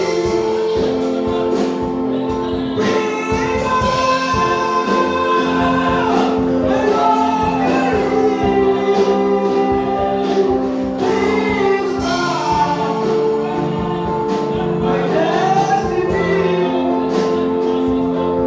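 Gospel music: a choir singing over sustained keyboard chords with a steady beat.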